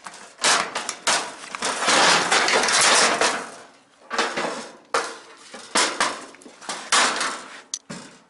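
Sheet metal and parts of a clothes dryer clattering and scraping as it is pulled apart by hand. There is a long scraping stretch about a second and a half in, then several shorter clanks.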